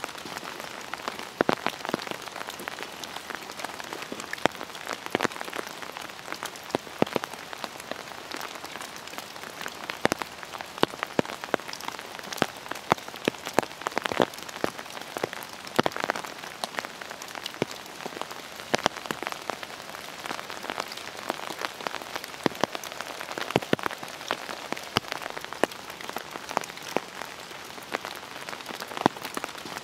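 Rain falling on an umbrella held right by the microphone: a steady hiss of rain with irregular sharp drop hits, several a second.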